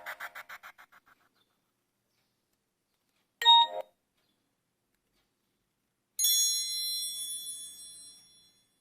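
Built-in tones of a Nokia 3250 mobile phone: a ringtone's tail fades out in fast pulsing echoes, then a short electronic tone about three and a half seconds in, and a bright bell-like chime about six seconds in that rings on and fades over two seconds.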